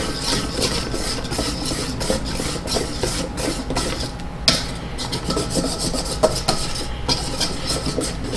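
Wire whisk scraping round a stainless steel bowl in smooth, repeated strokes, stirring chocolate into an ice cream custard base to melt it. A couple of sharper clicks of the whisk against the bowl come about halfway through.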